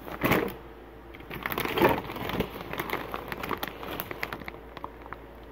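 A clear plastic bag full of plush toys crinkling and rustling as it is handled and shifted, with irregular crackles and louder crinkles near the start and about two seconds in.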